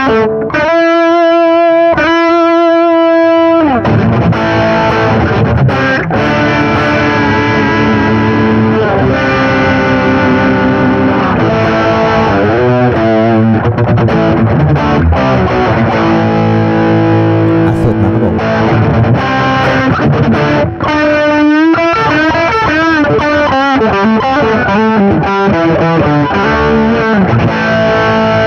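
Electric guitar played through a Marshall GV-2 Guvnor Plus overdrive/distortion pedal, giving a driven tone, in a demonstration of the pedal's gain control. It plays held notes and chords, with bent, wavering notes about twelve seconds in and again after twenty seconds.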